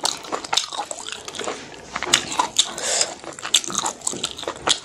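Close-miked mouth sounds of chewing pork offal and rice: irregular wet smacks and sharp clicks, several a second.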